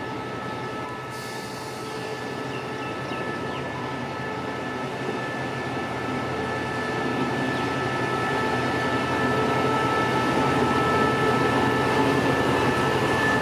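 SRT QSY-class diesel-electric locomotive 5202 moving slowly past, its engine running with a steady high whine, growing steadily louder as it draws near.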